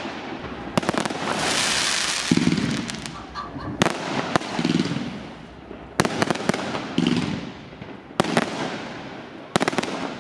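Aerial fireworks bursting overhead: sharp bangs about every one to two seconds, some in quick pairs, with a spell of hissing and crackling between them.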